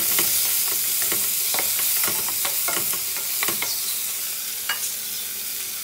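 Chopped onions, tomatoes and peppers sizzling in hot oil in a stainless steel pan. A spatula stirring them scrapes and taps against the pan now and then.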